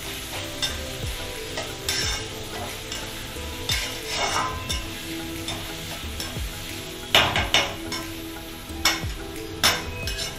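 Shredded cabbage and other vegetables sizzling as they are stir-fried over a high gas flame, with a spatula repeatedly scraping and knocking against the metal kadai. The loudest scrapes come a little past the middle and again near the end.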